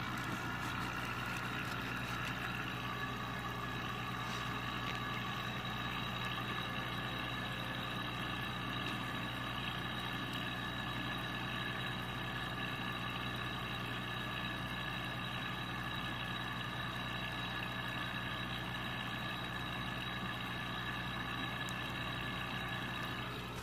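A steady mechanical hum: a low drone with a higher, even whine over it.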